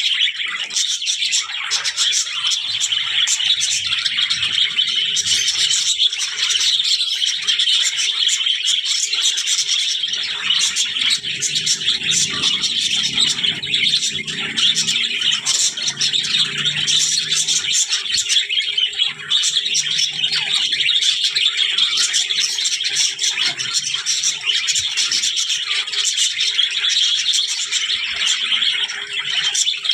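Budgerigars chattering and warbling without pause, a dense stream of quick chirps, clicks and twitters.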